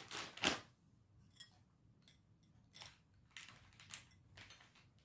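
A short crinkle of a plastic packaging bag about half a second in, then faint, scattered small clicks and rustles of jewellery and packaging being handled.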